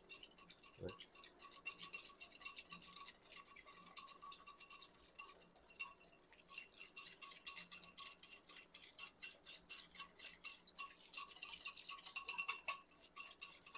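Small wire whisk rapidly clinking and scraping against the inside of a ceramic bowl, beating grated pecorino and water into a thick cheese paste.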